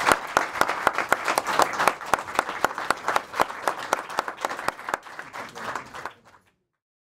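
Audience applauding, many hands clapping. The applause slowly thins and quietens, then cuts off abruptly about six seconds in.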